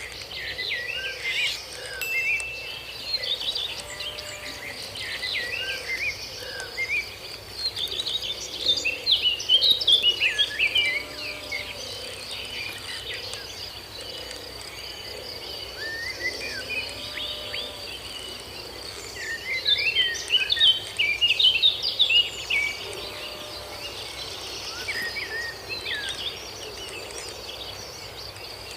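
Outdoor birds chirping in bursts over a steady high insect drone, with the bird calls loudest about a third of the way in and again past two-thirds.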